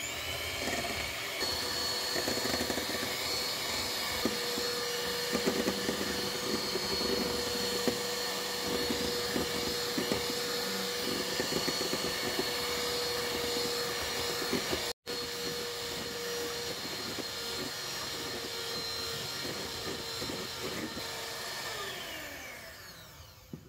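Electric hand mixer running steadily, its wire beaters whipping egg whites in a stainless-steel bowl into meringue as sugar is added. The motor winds down near the end.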